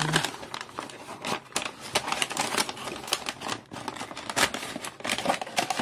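Black tissue paper crinkling and a cardboard box rustling as hands unpack it: a dense run of irregular crackles and clicks.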